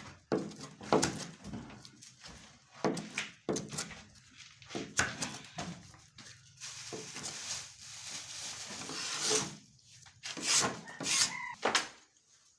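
Scattered knocks and thuds from hand work on a plaster ceiling installation, with a stretch of scraping hiss that grows louder in the middle and faint voices near the end.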